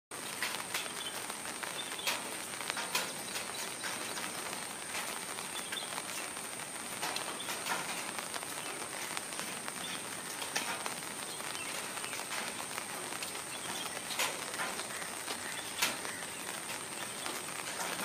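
Outdoor ambience: a steady high-pitched insect buzz over a background hiss, with scattered sharp clicks throughout.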